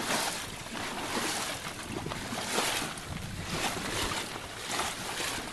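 Water rushing and splashing along the hull of a Catalina 22 sailboat under sail, rising and falling in uneven surges.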